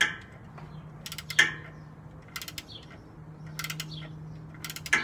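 Ratcheting 14 mm wrench clicking in several short runs as it is swung back and forth on a torque converter bolt being worked loose from the flex plate.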